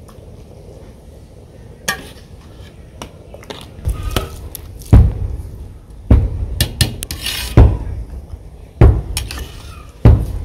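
Cooking pots and utensils being handled: about eight irregular knocks and clinks, some with a heavy thump, the first about two seconds in.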